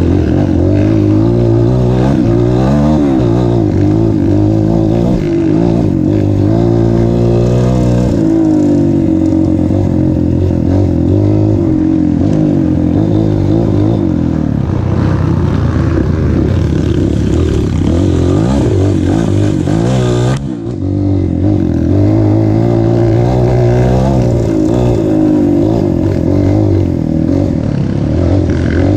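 Motor vehicle engine running hard, its pitch rising and falling again and again as the throttle opens and closes. Near the middle it briefly drops off, then picks up again.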